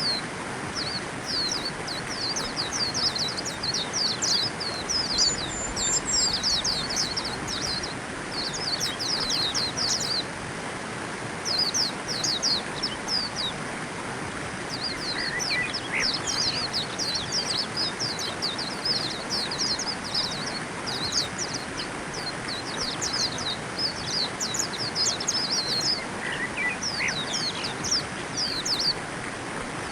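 White-eyes twittering: quick runs of thin, high chirps, one after another with short pauses, over a steady hiss. Twice a brief lower call cuts in.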